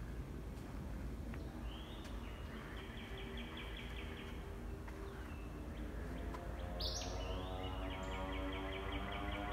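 Birds singing, with two rapid trilled phrases, over a steady low outdoor rumble. About six seconds in, an engine's steady drone fades in and grows louder.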